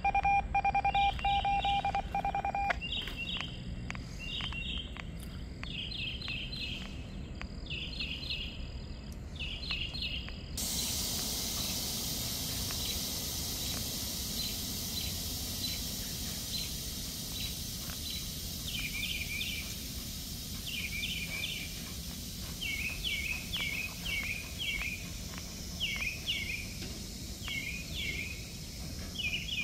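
High chirping calls in short groups of three or four, about one group a second, over a low steady rumble. A pulsing electronic beep sounds for the first three seconds, and a steady hiss starts about ten seconds in.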